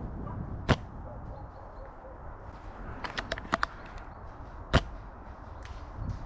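Two sharp airsoft gun shots about four seconds apart, the first about a second in and the second near the end, with a quick run of lighter clicks between them.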